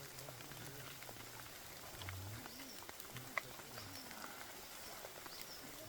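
Faint outdoor background: a low distant murmur with a few short high chirps, like small birds, and a light click about three seconds in.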